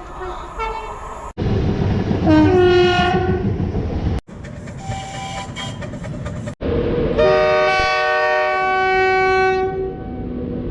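Train horns from several passing trains in quick succession. One horn chord drops in pitch as its train goes by, and a louder multi-note horn blast is held for about two and a half seconds in the second half. The rumble of the trains running lies underneath.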